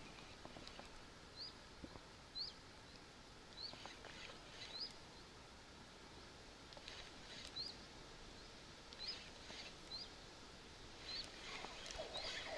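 A small bird calling: short, high, rising chirps repeated about once a second, with a pause in the middle, over faint outdoor background. Faint rustling near the end.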